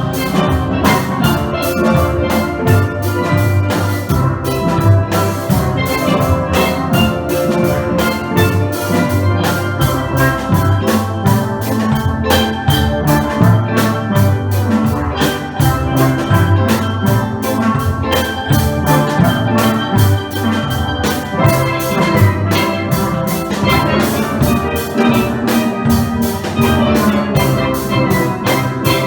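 Steel pan band playing live: many steel drums struck in a quick, steady rhythm, continuing without a break.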